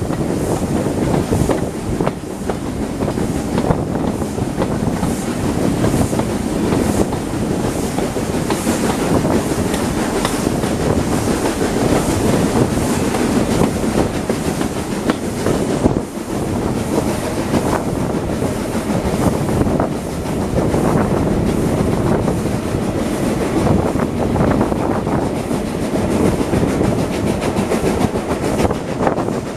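Heritage steam train's carriages running along the line, heard from an open carriage window: a steady rumble of the wheels on the track with irregular clickety-clack over the rail joints.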